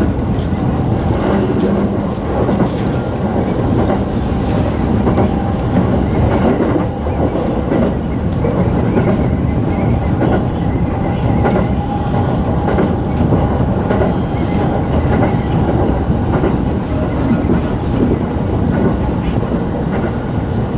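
Sotetsu 10000 series electric commuter train running at speed: a steady rumble of wheels on rail with repeated clicks from rail joints.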